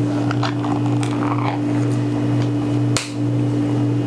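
Small tin can being handled and opened: faint clicks and scrapes, then one sharp click about three seconds in, over a steady low hum.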